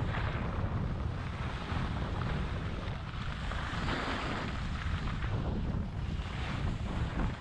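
Wind buffeting the microphone of a skier's point-of-view camera while skiing downhill, a steady low rumble, with skis hissing over packed snow in surges during turns.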